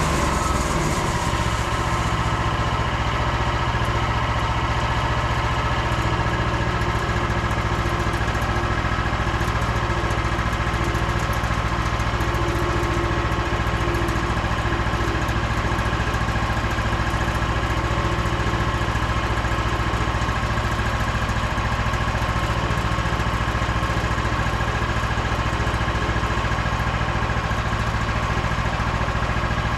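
Frontier OS27 band sawmill's engine running steadily at an even speed.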